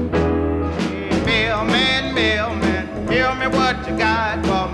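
Country-style music with a singing voice over bass and guitar.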